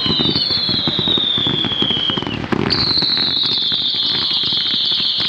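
Daylight fireworks barrage: a dense run of rapid bangs and crackling under long whistles that slowly fall in pitch. About two and a half seconds in, a sharp bang sets off a new, louder whistle that carries on.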